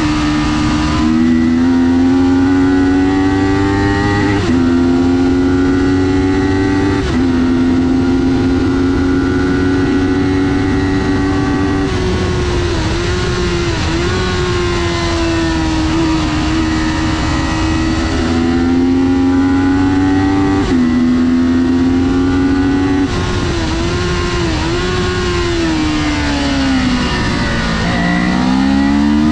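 Kawasaki Ninja 400's parallel-twin engine at race revs: the pitch climbs under throttle and drops in a step at each of several upshifts. Twice it wavers with quick blips like downshifts into a corner, and near the end it falls away under braking, then climbs steeply again.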